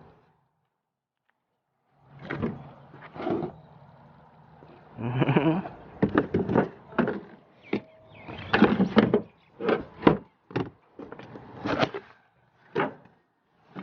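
Silent for about two seconds, then a string of irregular knocks, clanks and thuds as aluminum roof rack parts are taken out of their box and handled.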